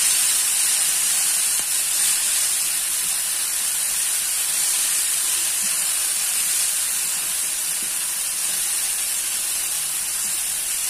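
Ground chili, shallot and garlic paste sizzling steadily in hot oil in a non-stick frying pan as it is stirred, sautéing until cooked.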